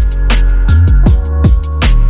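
Background music: a steady beat of drum hits over deep, sliding bass notes.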